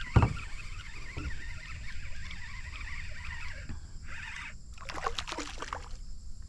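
Water sloshing and splashing at a kayak. There is a sharp thump just after the start, and a cluster of splashy clatter about five seconds in.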